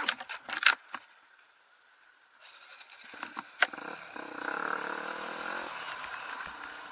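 A few sharp knocks, then a short near-silent gap, after which an enduro dirt bike's engine comes in, running and growing louder before holding steady, with a single sharp clack partway through.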